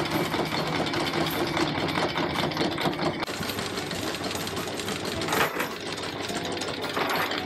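Sailboat's anchor windlass hauling in the anchor chain: a fast, steady mechanical rattle, with a brief louder burst about five seconds in.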